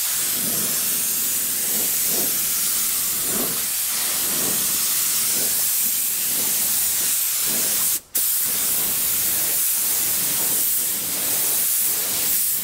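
DeVilbiss SRI Pro spot-repair spray gun hissing steadily as it sprays leather dye at about 2 bar. The hiss cuts out for a moment about eight seconds in, then starts again.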